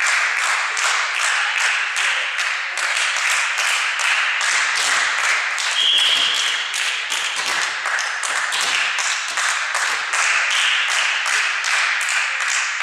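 Volleyball supporters clapping in a steady rhythm, about three claps a second, over a continuous din of cheering voices. A short whistle blast sounds about six seconds in.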